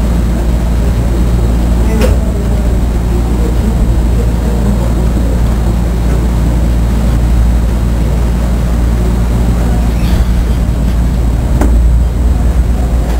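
Steady low hum of electric fans and an air conditioner running, with a few faint clicks about two, ten and eleven and a half seconds in.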